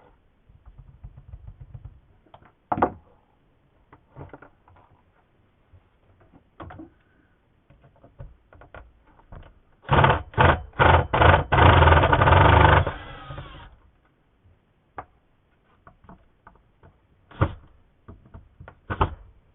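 Handheld electric power tool's motor triggered in four short bursts, then run for about a second and winding down. Scattered clicks and knocks of chainsaw parts being handled come before and after.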